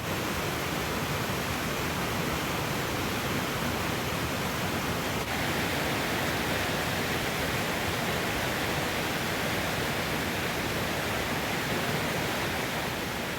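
Mountain stream rushing steadily over rocks: a constant, even rush of flowing water.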